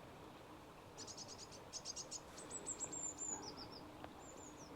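A small songbird singing faintly: a quick run of repeated high notes, then a falling series of notes, and a short high phrase near the end.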